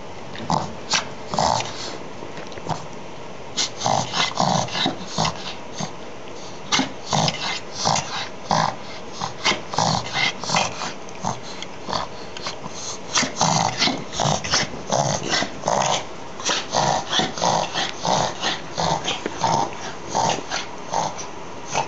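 A dog reverse sneezing: rapid, repeated snorting inhalations through the nose, about two or three a second, in runs broken by short pauses.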